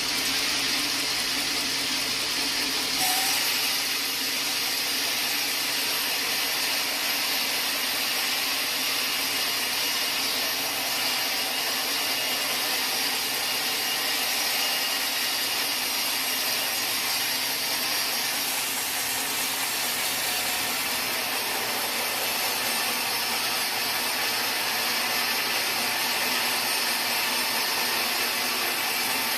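Sawmill saw running and cutting wood, a steady, loud hiss with no break. The sound brightens slightly about three seconds in.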